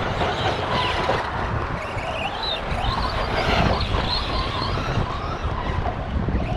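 Radio-controlled Big Rock monster truck lapping a track: its electric motor whines, rising and falling with the throttle, over the rush of tyres and wind on the microphone.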